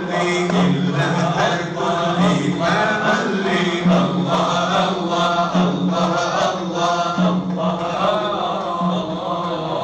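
Group of men chanting dhikr together in a Sufi hadra: a steady low chant held by the group, with sung melodic lines rising and falling over it in a regular pulse.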